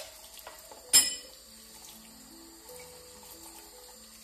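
Soft background music, with a sharp ringing clink about a second in, and another right at the start, as hookah parts knock together at the sink during cleaning. Water runs under it.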